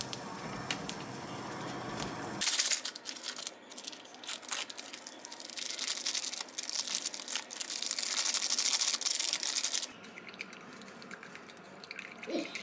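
A saucepan of noodles on a gas burner, stirred with chopsticks, gives a low, even noise. About two and a half seconds in, this gives way to crinkling and tearing plastic as sauce sachets are ripped open and squeezed into a ceramic bowl, the loudest part, which stops abruptly near ten seconds; a few quieter clinks of stirring in the bowl follow.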